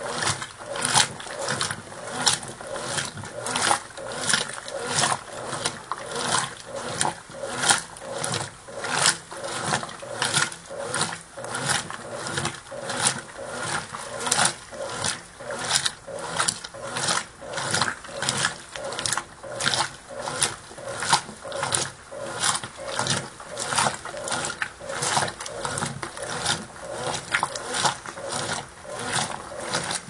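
Brastemp Ative! 11 kg top-load washing machine agitating a load in soapy, foamy water with its lid open: water sloshing and churning in a steady rhythm of a little more than one stroke a second.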